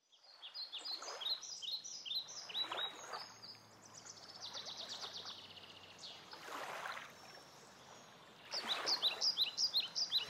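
A songbird sings runs of quick falling chirps, then a fast trill in the middle, then more chirps near the end. Beneath it a rushing noise swells up and fades several times.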